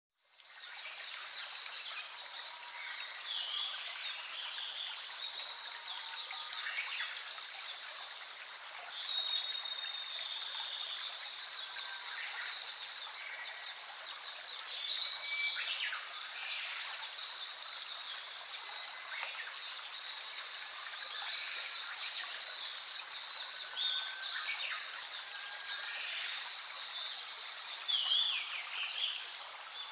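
Chorus of many wild birds singing and chirping together, a dense mix of overlapping chirps, trills and thin whistles that fades in over the first second.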